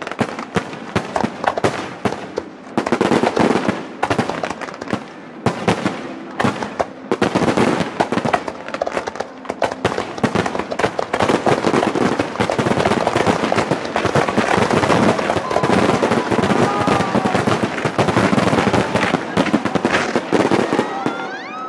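Fireworks barrage: rapid, overlapping bangs of bursting shells and crackling stars, thickening into a near-continuous crackle in the second half.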